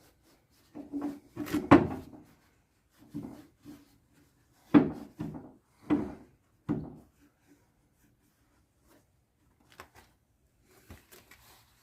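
Irregular knocks and clunks of heavy metal axle parts being handled and set down, about eight of them, the loudest in the first two seconds and around five seconds in, then a few light taps near the end.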